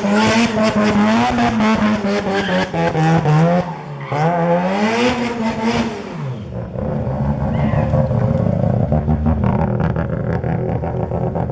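Mazda RX-7 FD's twin-rotor 13B rotary engine revving up and down repeatedly, with a bigger rise near five seconds. About six seconds in it drops to a lower, rough, steady rumble.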